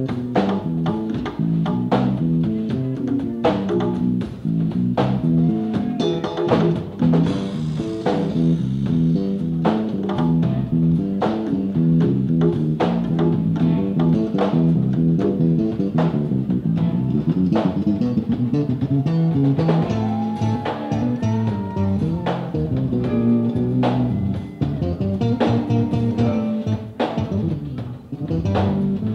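Live band playing with the amplified sound of a bar room: an electric bass line and guitar over a drum kit's steady beat. Around the middle, notes bend up and down.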